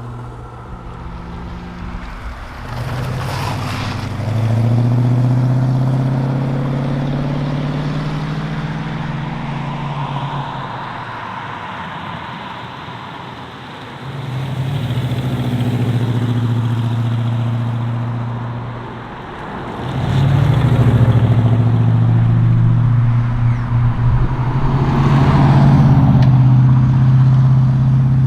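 Ford XB Falcon John Goss Special's V8 engine running under load. It eases off twice, about ten to fourteen seconds in and again briefly near nineteen seconds, and each time comes back on the throttle. It is loudest over the last third.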